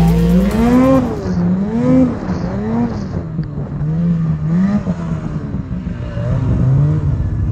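Snowmobile engine revving up and down under load in deep powder snow, its pitch rising and falling about once a second as the throttle is worked.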